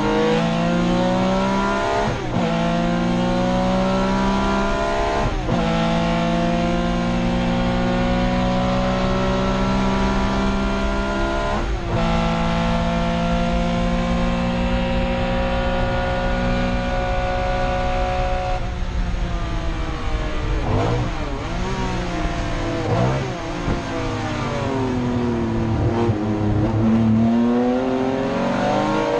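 Race car engine heard from inside the cabin under hard acceleration, its pitch climbing through the gears with upshifts about 2, 5 and 12 seconds in and a long pull after the last. Around 19 seconds it lifts off, with a few short revs rising and falling during braking, then it pulls hard again near the end.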